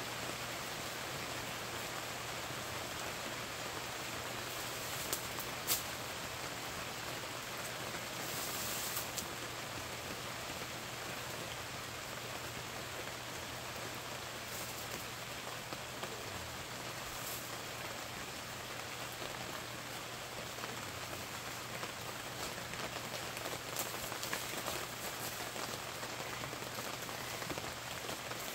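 Steady rain falling on a fabric canopy roof, an even hiss throughout, with a couple of brief light clicks a few seconds in.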